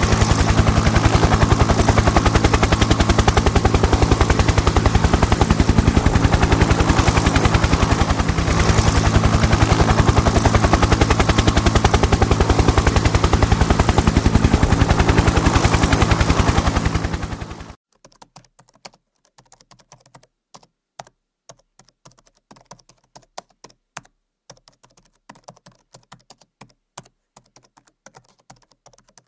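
Sustained rapid machine-gun fire, a loud fast rattle that cuts off abruptly after about eighteen seconds. It is followed by faint, irregular computer keyboard typing.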